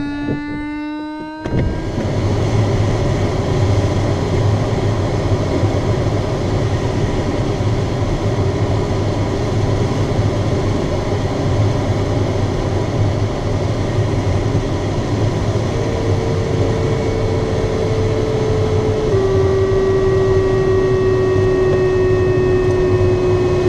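Steady rush of airflow over a glider's canopy in flight. A rising electronic tone is heard at the very start, and a steady electronic tone joins about two-thirds of the way through, stepping slightly lower in pitch a few seconds later.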